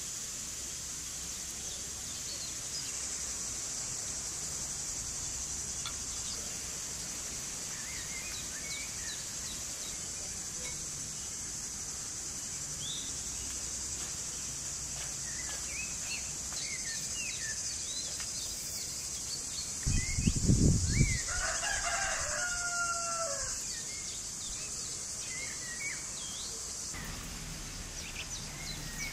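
Farmyard ambience: a steady high-pitched insect buzz with scattered small-bird chirps. About two-thirds of the way in, a short loud low rush is followed by a rooster crowing once.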